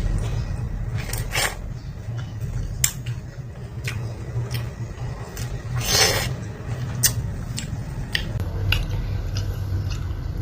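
Scattered light clicks and clinks of tableware being handled while food is readied for eating, over a steady low hum, with one longer scraping rustle about six seconds in.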